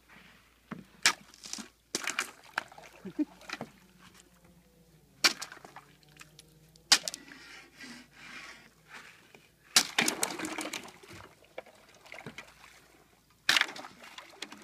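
Thin ice on frozen sea water being struck and broken with a wooden pole: a series of sharp cracks and splashes as the ice plates break and water sloshes through the gaps. The hits are irregular, with a quick run of strikes about ten seconds in and another near the end.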